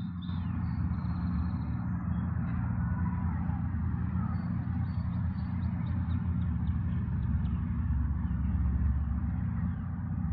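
Outdoor street ambience: a steady low rumble, with faint short chirps of small birds above it early on.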